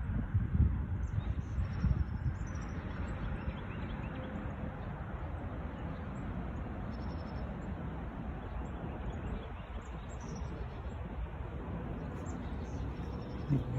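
Strong, gusty wind rushing, buffeting the microphone with low rumbling thumps over the first couple of seconds, then blowing more steadily. Small birds chirp faintly here and there.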